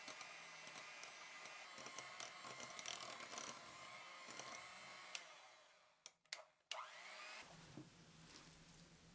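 Electric hand mixer whipping heavy cream firm in a glass bowl, a steady motor hum that winds down and stops about six seconds in, followed by two short clicks.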